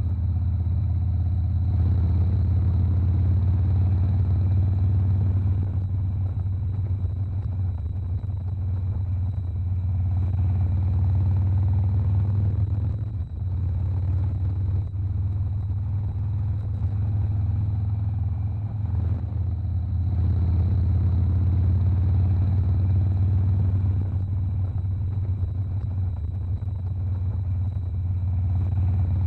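Suzuki Burgman 650 maxi-scooter on the road: a steady, loud low rumble of engine and wind while riding, with a faint steady high whine above it.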